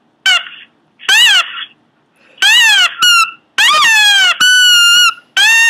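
Pomeranian dog giving a run of about seven short, high-pitched cries, each arching up and then down in pitch, the later ones longer and held.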